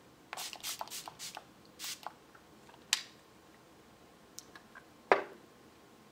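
MAC Fix+ setting spray pump bottle spritzing the face: a quick run of short sprays in the first two seconds and one more about three seconds in. A sharp click a little after five seconds is the loudest sound.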